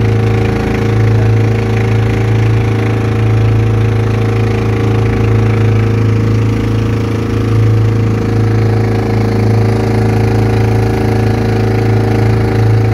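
Engine of a motorized outrigger fishing boat (bangka) running steadily under way, a constant low drone that holds an even pitch throughout.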